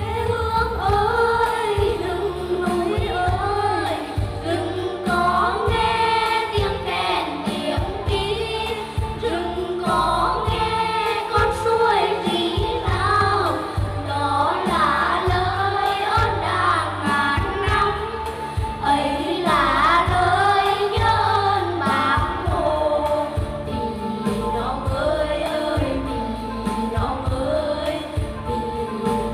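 Voices singing a Vietnamese Nghệ Tĩnh folk song together over an instrumental backing track with a steady low beat.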